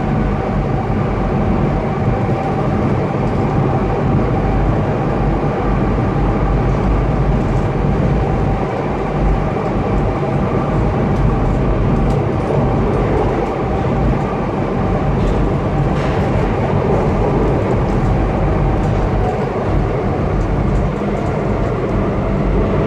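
Alstom MF77 steel-wheeled metro train running at speed through a tunnel, heard from inside the passenger car: a loud, steady rumble and rolling noise with a thin, steady whine above it.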